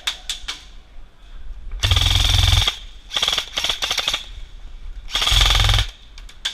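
Airsoft gun firing on full auto in several short bursts of rapid shots, the longest just under a second, after a few single clicks near the start.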